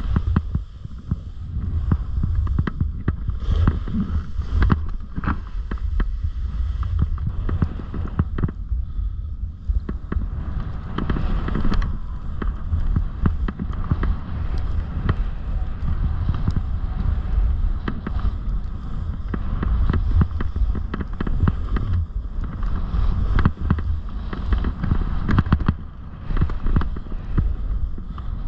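Snowboard sliding and carving over chopped-up snow: a continuous scraping hiss broken by many short scrapes and knocks. Heavy low wind rumble on the microphone from riding at speed runs under it.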